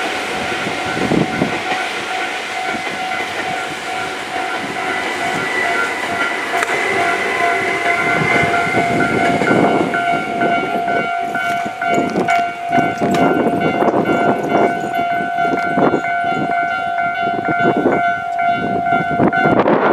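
Japanese level-crossing alarm ringing steadily while a Tōbu Railway train runs over the crossing. The train's wheels knock over the rail joints, growing louder and denser from about halfway in.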